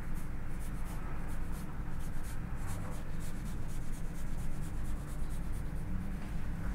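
Chef's knife slicing thin strips through a firm honeydew melon wedge on a wooden cutting board, with soft repeated scratching strokes of the blade. A steady low hum runs underneath.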